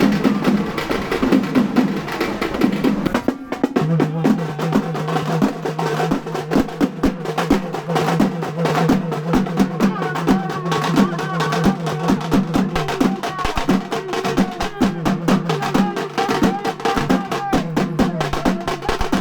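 Music driven by fast, dense drumming over a steady low drone, with a short break about three seconds in.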